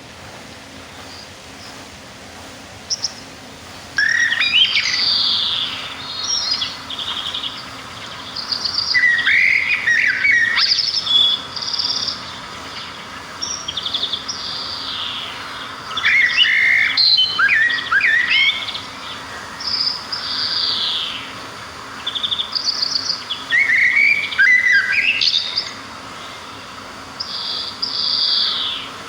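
Small songbirds singing, several voices overlapping. After a few quiet seconds with a single chirp, phrases of sliding and trilled high notes come in bursts of a second or two with short pauses between.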